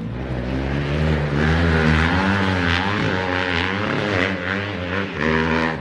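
Motocross dirt bike engines running on the track, the pitch rising and falling as the throttle is worked, over a steadier low engine drone.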